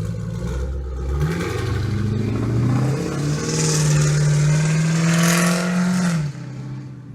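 Straight-piped Ford Mustang exhaust: the engine runs low, revs up over about two seconds, holds the higher speed for about three seconds, then drops off suddenly near the end.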